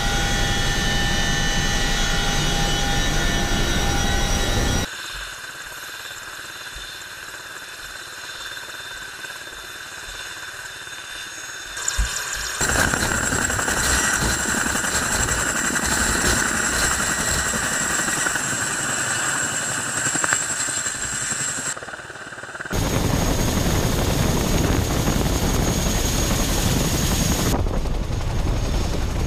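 Chinook tandem-rotor helicopter running loud and steady, its rotors and turbines whining, partly heard from the open rear ramp of the cabin. The level drops for several seconds in the middle, then the loud rotor noise returns.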